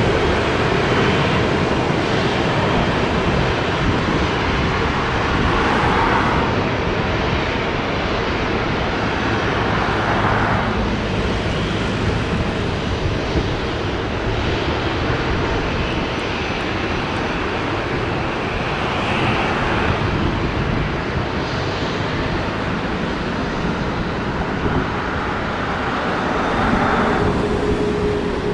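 Airbus A380-800 jet engines running, a loud, steady rushing roar.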